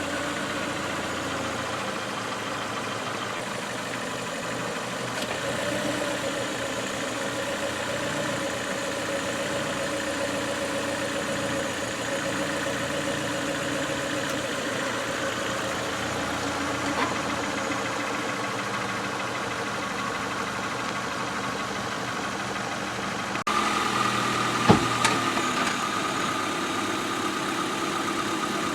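Car engine running steadily at low speed, with an abrupt change in its tone about 23 seconds in. A sharp crack about 25 seconds in and a fainter one around 17 seconds, typical of the tire crushing something.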